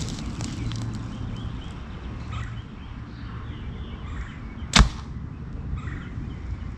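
A compound bow shot as a paper-tuning test: a single sharp snap a little under five seconds in as the string is released and the arrow goes through the paper into the target.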